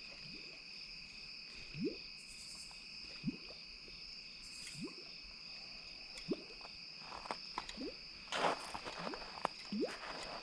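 Evening chorus of insects trilling steadily at two high pitches, with short low rising calls repeating about every one and a half seconds. Scattered rustling and splashing noises come in over the last few seconds.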